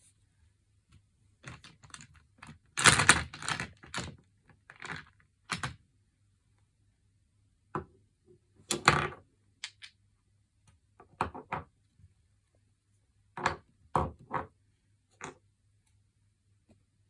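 Small glass nail polish bottles clinking against each other and knocking on a wooden floor as they are picked up and set down, in several short bursts of clicks and knocks with quiet gaps between.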